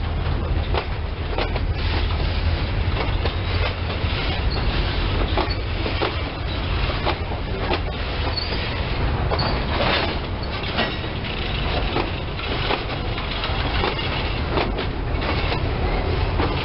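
Freight train boxcars rolling slowly past at close range: a steady low rumble from the wheels with irregular clicks and knocks from the wheels and couplers.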